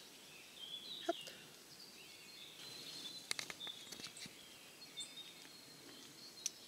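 Faint birdsong with scattered sharp little ticks: caterpillar droppings (frass) pattering down onto the leaves from the tree canopy. A small cluster of ticks comes about halfway through.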